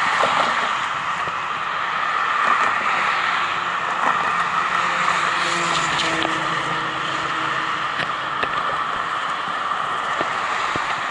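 Steady road traffic noise from cars driving past on the bridge, an even hiss of engines and tyres with no break.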